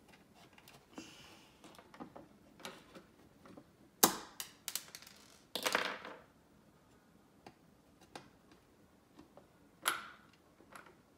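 Scattered clicks and taps of hard plastic toy parts and tools being handled on a tabletop, loudest in a quick cluster about four seconds in, with a short scrape around six seconds and another sharp click near the end.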